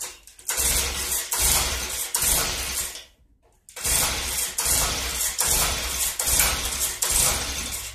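A Stihl BG 65 leaf blower's two-stroke engine is being pull-started: the recoil starter rope is yanked again and again in quick strokes, with a short pause about three seconds in, and the engine never fires. The owner puts the no-start down to a defective carburetor leaking fuel.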